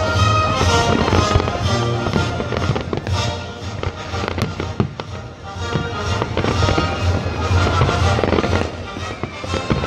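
Fireworks crackling and popping in rapid succession, over music with a steady low beat.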